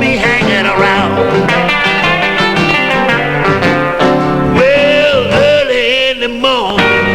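Chicago electric blues band recording with electric guitar, a steady full band sound, and a held, wavering lead line standing out in the second half.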